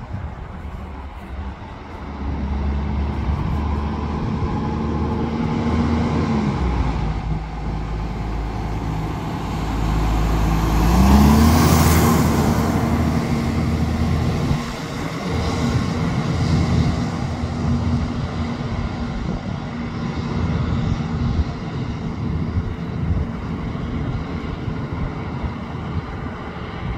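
Garbage truck's diesel engine driving up and past close by. The engine note rises and drops once, then climbs again as the truck accelerates. It is loudest, with a rush of road noise, as the truck goes by near the middle, then settles into steady running as it moves off up the street.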